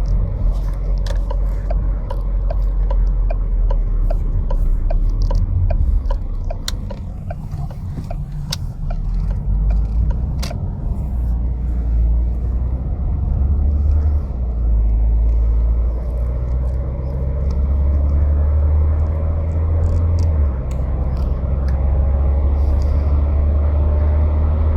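A car engine runs at a steady idle with a continuous low rumble. Light regular ticking comes about two to three times a second for the first few seconds, and a few sharp clicks follow.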